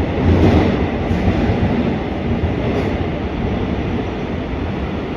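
Gwangju subway train running between stations, a steady loud rumble of wheels on the rails heard from inside the car, with a few faint clicks.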